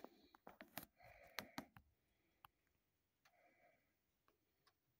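A cluster of light clicks in the first two seconds as the watch is handled, its stainless steel bracelet links clinking, the first click the loudest, and two soft breaths, one about a second in and one past the middle.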